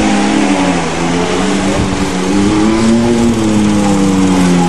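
Motorhome engine running hard under load, its pitch rising and falling as it is revved while the motorhome spins donuts in loose dirt.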